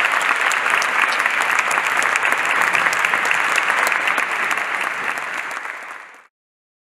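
Audience applauding steadily, a dense patter of many hands clapping, fading out about six seconds in.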